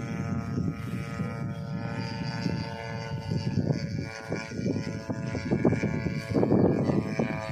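Small petrol grass-cutter engine of a homemade radio-controlled plane, droning at a steady pitch as the plane flies overhead. Wind rumbles on the microphone and gets louder near the end.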